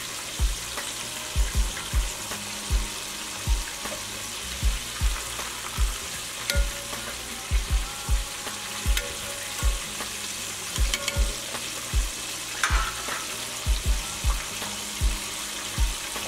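Flour-dredged chicken thighs deep-frying in vegetable oil: a steady sizzle with frequent low thumps, about one or two a second. A few sharp clicks come as metal tongs turn the pieces in the pot.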